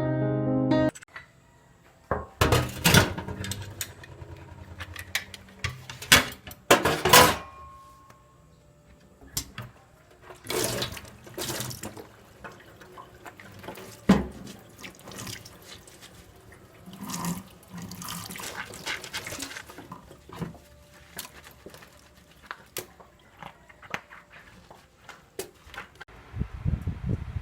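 Household kitchen sounds: short spells of running or splashing water from a tap, among scattered clicks, knocks and clinks of utensils and dishes.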